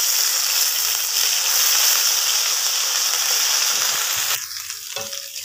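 Garlic-ginger paste sizzling in hot ghee while being stirred with a spatula, a steady frying hiss that cuts off abruptly about four seconds in, followed by a single short knock.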